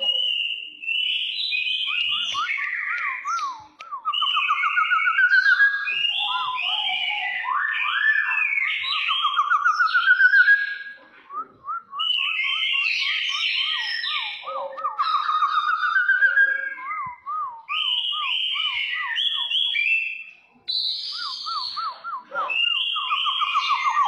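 Caged kepodang coklat (a brown oriole) singing loud, fast phrases of warbling trills and rising whistled notes, with short breaks between bursts: the aggressive style of song.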